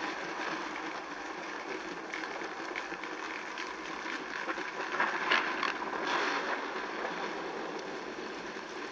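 Dolby Atmos demo clip playing through the OnePlus 7 Pro's stereo speakers (earpiece plus bottom speaker): a steady rushing noise, with a few sharper hits about five and six seconds in.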